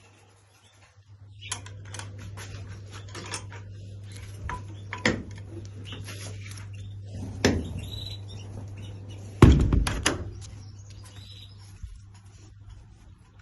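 Small cage birds giving short high chirps, among clicks, rattles and several knocks, the loudest about nine and a half seconds in, over a steady low hum.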